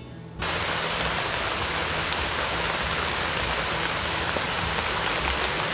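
Rain falling steadily, a dense hiss of drops that comes in abruptly about half a second in.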